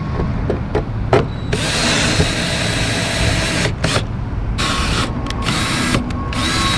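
Cordless drill running with a high whine as a foot-control switch is mounted to a boat deck: one run of about two seconds starting a second and a half in, then two shorter runs. A few light clicks come before the drill starts.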